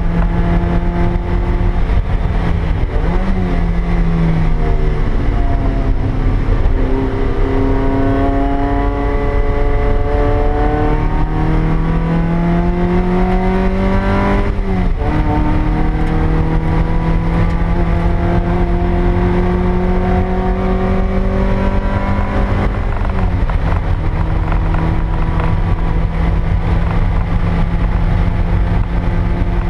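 A 2000 Toyota MR2 Spyder's stock 1ZZ 1.8-litre four-cylinder, heard from inside the cabin under hard track driving. The revs fall for a few seconds, then climb steadily for about eight seconds. Pitch drops sharply at an upshift about halfway, climbs again, then drops at another shift and holds steady near the end.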